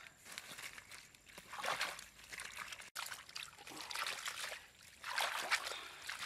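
Water sloshing and trickling as oranges are stirred and rinsed by hand in a wicker basket dipped in a stream, in uneven splashy bursts. After a break about three seconds in, more bursts of noisy rustling follow.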